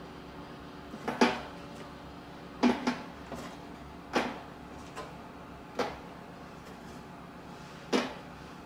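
Light knocks and clatters as baked cookies are taken off a metal baking tray and set down on a wire cooling rack, an irregular string of about nine, over a steady low hum.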